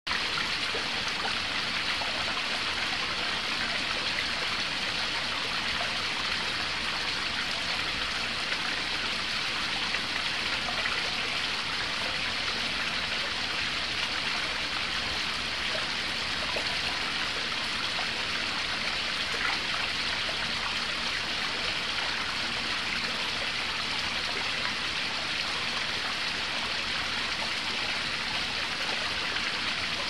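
Small garden waterfall splashing down rocks into a pond: a steady, unbroken trickling and splashing of falling water.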